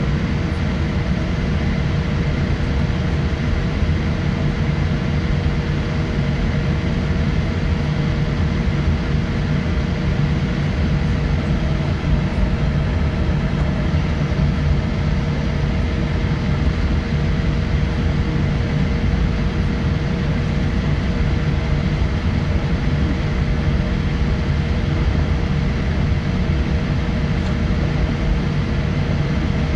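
Cabin noise of a Boeing 787-8 taxiing, its Rolls-Royce Trent 1000 engines at taxi power: a steady low rumble with a steady mid-pitched hum over it.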